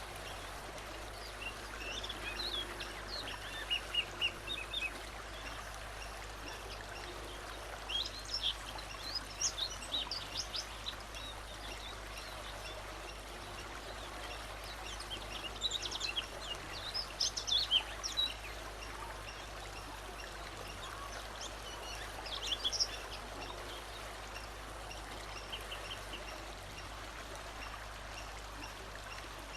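A songbird sings four separate bursts of quick, high-pitched notes, each a few seconds long and spaced several seconds apart, over a steady background hiss.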